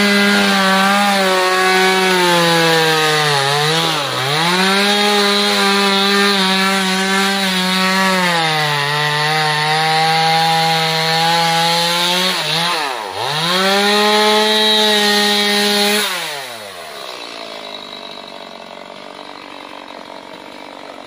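Two-stroke chainsaw at full throttle cutting into a coconut palm trunk, its pitch dipping briefly twice as the chain bogs in the wood and recovers. About three-quarters of the way through the throttle is released and the revs fall away, leaving a much quieter low running.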